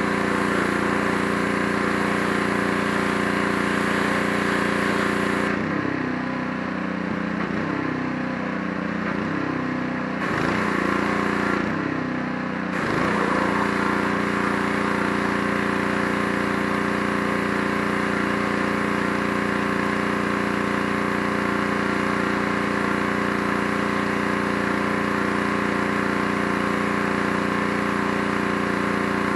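Gas-engine pressure washer running steadily, with the hiss of its water spray. From about six to thirteen seconds in the spray stops, apart from one short burst, and the engine pitch dips and recovers several times; then the spray starts again and the steady running resumes.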